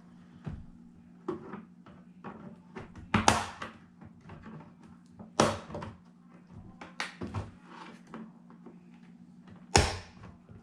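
Plastic clicks and knocks as the snap-on back cover of an HP all-in-one computer is pried loose from its clips. Three of them are loud sharp snaps, spread through the few seconds.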